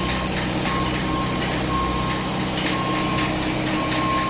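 Komatsu PC1250-8 excavator's six-cylinder diesel engine running steadily. A short electronic beep repeats about every half second to second over it, with faint high ticks.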